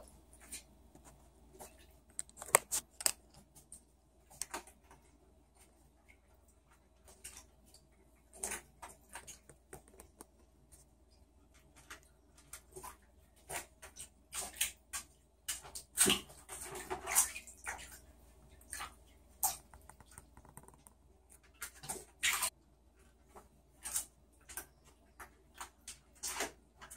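Scattered taps, clicks and small splashes of a young raccoon moving about in a bathtub with a little water, its paws and claws on the enamel and a plastic ring, with a longer scuffle about sixteen seconds in.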